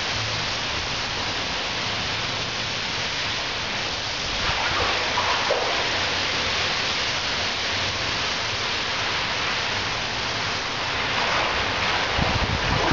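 Steady hiss of falling rain and running water.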